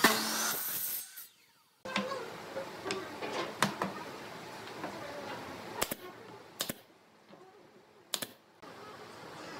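A pneumatic nail gun fires three sharp shots, about 6, 6.6 and 8 seconds in, into a pine chair frame. Light knocks and clicks of the wooden parts being handled run between the shots. The first second holds the end of a power saw's run.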